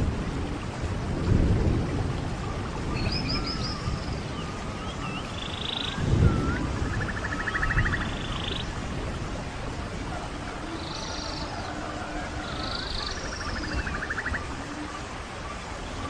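Several songbirds singing in a forest, with short chirping phrases, buzzy trills and whistled notes overlapping. Under them runs a low rumble that swells about a second in and again about six seconds in.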